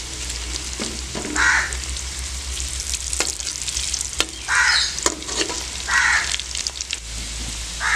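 Whole boiled potatoes sizzling as they fry in hot ghee in an aluminium karahi. A slotted metal skimmer clicks and scrapes against the pan a few times as they are turned. A bird gives four short calls over the frying.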